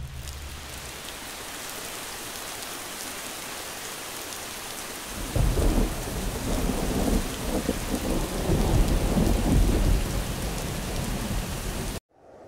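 Steady hiss of rain, then about five seconds in a long roll of thunder rumbling in uneven surges for several seconds before easing; the sound cuts off suddenly near the end.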